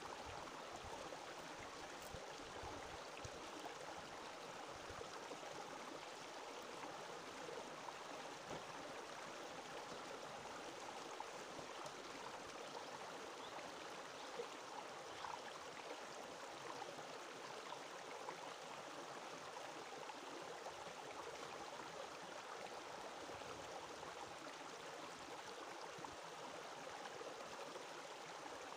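Low, steady rush of a stream's running water, unbroken throughout.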